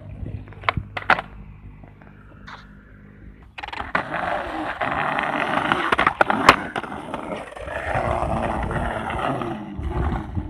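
Skateboard on grooved concrete: two sharp board clacks about a second in. From about three and a half seconds in, a loud rolling rumble of the wheels over the rough surface lasts about six seconds, with a couple of sharp clacks near the middle.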